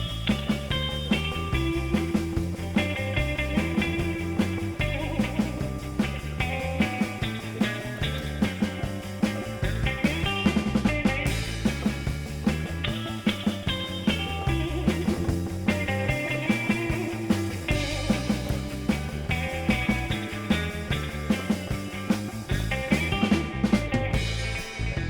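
Background rock music with a steady drum beat and electric guitar.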